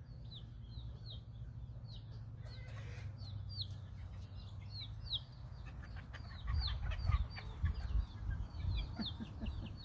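Serama chicks peeping: a steady run of short, high, falling peeps, two or three a second. From about six and a half seconds in, low rumbling thumps join them and are the loudest thing heard.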